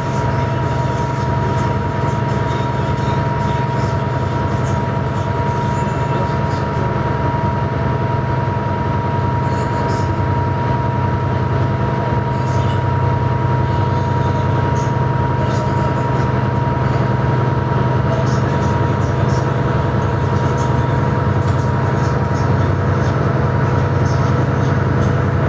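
Steady low drone of a ferry's engines under way, with a thin steady whine above it that fades about two-thirds of the way through.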